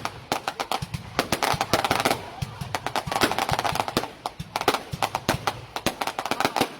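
Fireworks going off in quick succession: dense crackling pops and bangs, many a second, with crowd voices underneath.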